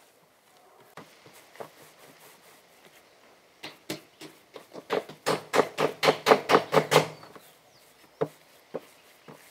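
Hands kneading and patting gulab jamun dough on a metal tray: scattered soft taps, then a quick run of slaps, about five a second, in the middle that dies away.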